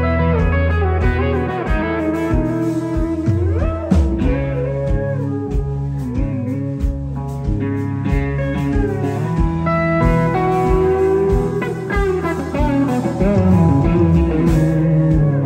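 Live country band playing an instrumental break: electric guitar lead with bending, gliding notes over bass guitar and a steady drum beat.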